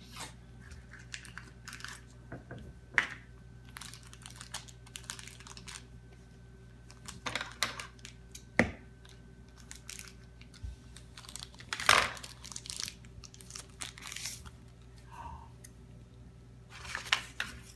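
Small toy blind-pack packaging being opened by hand: a wrapper tearing and crinkling, with scattered clicks and taps of small plastic pieces. It comes in irregular bursts rather than a steady sound.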